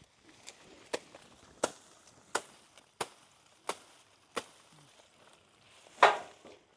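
Chopping by hand: seven sharp chopping strokes about 0.7 s apart, then one heavier blow near the end.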